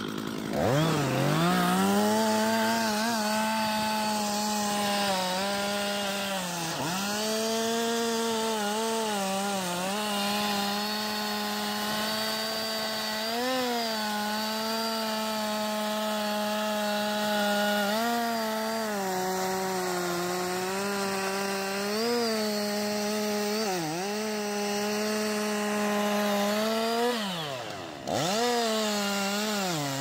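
Large two-stroke chainsaw running at full throttle while cutting into the base of a big tree trunk. Its steady high note sags briefly every few seconds as the chain bites into the wood. Near the end it drops almost to idle and revs straight back up.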